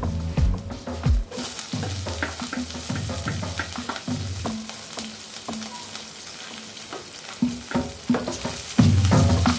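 Hot oil sizzling in a non-stick frying pan as cumin seeds, chopped garlic and chopped green chillies fry for a dal tadka, the hiss jumping up about a second in. A wooden spatula stirs and scrapes through the pan with scattered light knocks, busier near the end.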